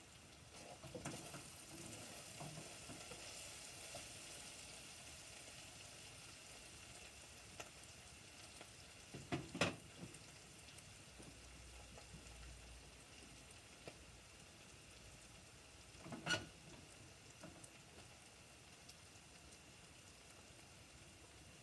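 Faint sizzling of food frying in a pot on a gas stove, with stirring noises near the start. Two sharp knocks, about ten and sixteen seconds in, are the loudest sounds.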